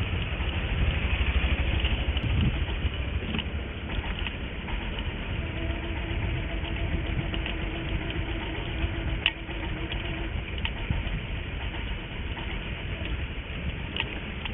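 Steady engine and road rumble from riding a two-wheeler over a rough, broken road, with a few sharp knocks along the way and a faint steady hum in the middle.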